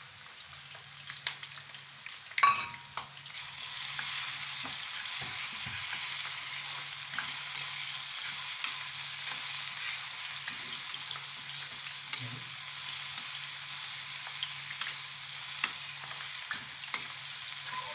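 Onions and spice masala sizzling in hot oil in a kadai while a spoon stirs and scrapes, with small clicks throughout. A loud clatter comes about two and a half seconds in, and the sizzling grows louder just after it.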